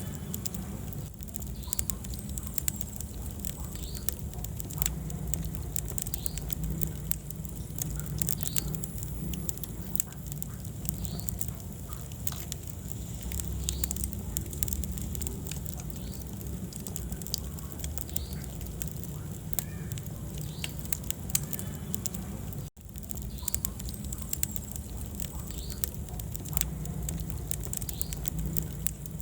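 Wood fire crackling in a fireplace: a steady low rumble of flames with frequent small, irregular pops and snaps. The sound cuts out for an instant about three-quarters of the way through.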